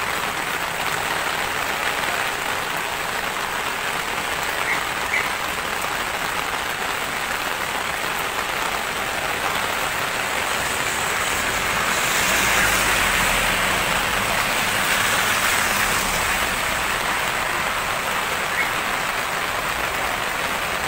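Heavy tropical rain falling steadily in a dense hiss, growing a little louder for a few seconds about twelve seconds in.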